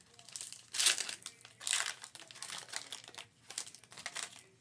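Foil wrapper of a basketball trading-card pack crinkling and tearing as it is pulled open by hand. It comes in irregular bursts, the loudest about a second in and again just before two seconds, with smaller crinkles after.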